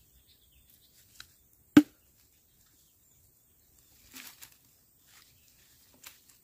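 A machete striking a charred bamboo tube: one sharp, loud crack with a short ring just under two seconds in, then softer cracking and rustling as the bamboo splits open around four seconds in.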